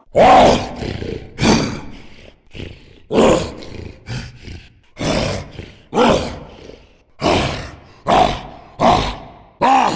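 Cartoon monster roar sound effects: a string of short roars, about one a second, each starting sharply and dying away.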